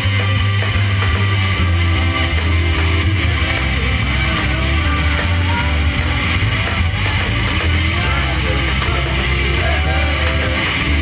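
Live rock band playing: a man singing lead over guitars, bass and drums.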